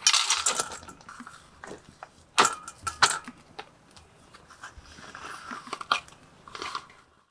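Dry dog kibble rattling out of a metal scoop into a stainless steel bowl, then a few separate sharp metallic clinks and the rustle and clicks of a peel-off can lid being pulled back and wet food tipped into the bowl.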